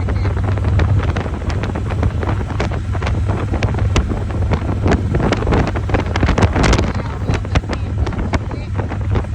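Wind buffeting the microphone of a moving motorcycle, with many short gusty thumps over a steady low engine and road drone.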